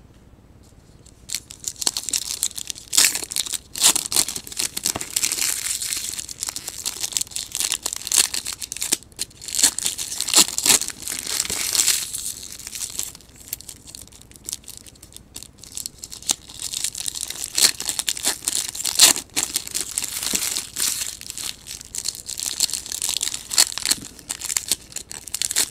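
Foil wrappers of Elite Extra Edition baseball card packs being torn open and crinkled by hand, an irregular crackling that starts about a second in.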